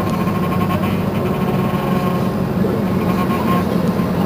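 Mercedes-Benz Citaro C2 city bus engine idling at a standstill: a steady low hum with a faint steady whine above it.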